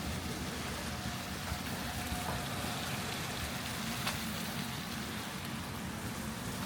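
Steady city street noise in a snowstorm: a constant low traffic hum under an even hiss, with a few faint ticks.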